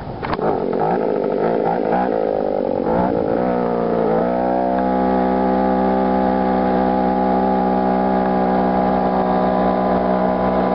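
Two-stroke chainsaw engine on a homemade motorized bicycle, driving through a centrifugal clutch and jackshaft. It revs up with a rising pitch over the first four seconds, mixed with wind rush, then runs steadily at high speed.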